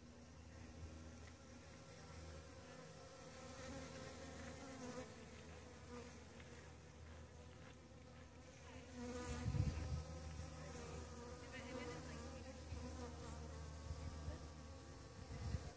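Honeybees buzzing as they fly around and forage on saguaro cactus flowers, a steady faint hum. About nine and a half seconds in there is a brief louder low rumble.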